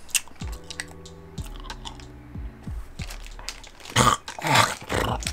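A person chewing and crunching a minty sweet in the mouth, with a cluster of loud crunches about four seconds in.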